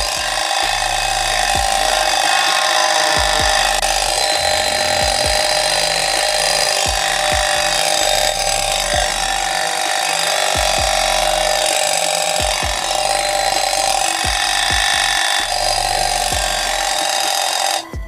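Homemade bird-hypnosis sound device running off a USB power bank, giving a loud, steady mechanical buzz. It starts as soon as it is connected and cuts off suddenly near the end.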